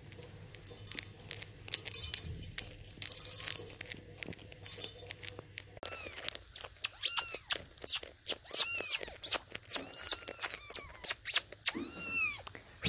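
Very young Persian kitten mewing: rapid, repeated short high-pitched squeaky mews, with one longer rising-and-falling mew near the end. Before the mewing, a scratchy high hiss.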